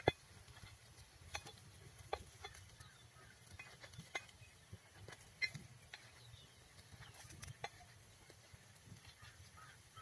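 Scattered light clicks and taps of a turning stick against a cast-iron paniyaram pan as the paniyarams are flipped, over faint low background noise.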